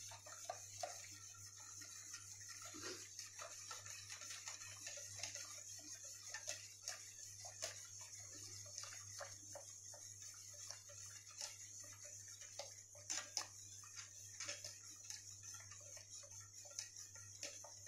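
Wire whisk stirring a milk pudding cooking in a stainless steel pot, the wires ticking and tapping irregularly against the pot, faint, over a steady hiss.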